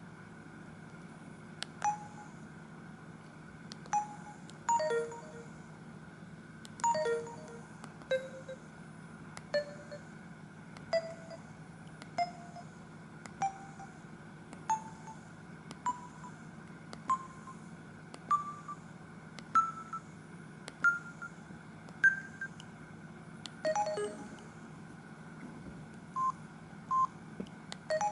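Samsung SGH-E250i mobile phone playing one of its built-in ringtones through its small speaker: short electronic beep notes, about one a second, climbing step by step in pitch through the middle, with a quicker cluster of notes near the end. A steady low hum runs underneath.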